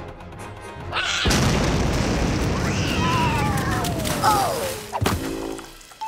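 Cartoon bomb explosion: a sudden loud blast about a second in that rumbles on for several seconds, with a falling whistle over it and music underneath.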